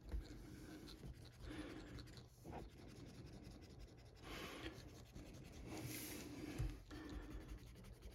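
Eraser rubbing back and forth on a comic book's paper cover edge, a series of faint, irregular scrubbing strokes as grime is worked off.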